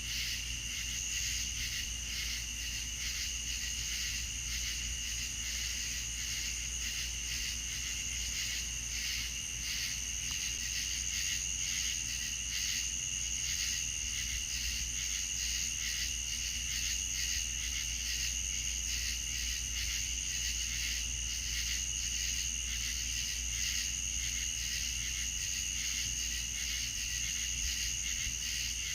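Night-time chorus of crickets trilling steadily and continuously, high-pitched and unbroken.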